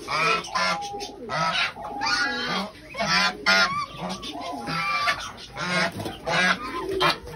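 Domestic geese honking over and over, about two short calls a second, agitated and aggressive.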